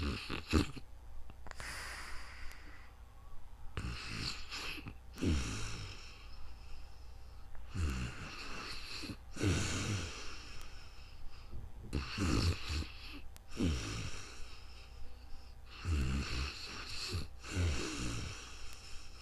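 A sleeping person snoring: a low rattling snore followed by a breathy rush of air, repeating about every four seconds.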